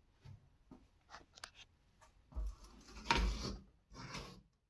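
Light handling noises: a few small clicks and knocks, then rubbing with dull bumps about two and a half seconds in and again near four seconds, cut off suddenly near the end.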